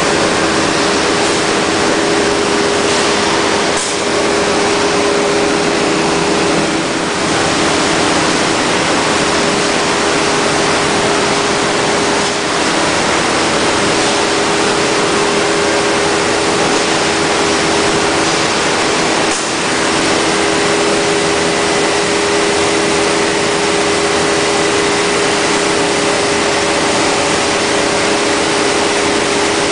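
CNC panel-machining centre's router spindle running steadily while routing holes in a panel: a constant hum over a steady rushing noise, with a few brief dips in loudness.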